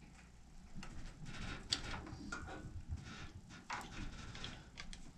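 Faint handling noises: scattered light clicks and soft rustling as someone moves and handles things at a stopped scroll saw.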